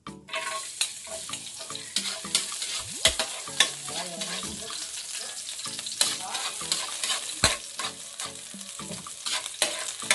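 Chopped garlic sizzling in hot oil in a wok, with a steady hiss, while a spatula stirs it and clicks and scrapes against the pan, a few knocks standing out louder.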